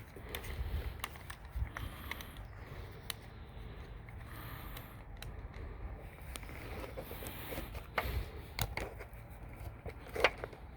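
Scattered small clicks, taps and scrapes of screen-door work as heavy-duty pet screen and its spline are pressed into the door frame, with a sharper click shortly before the end.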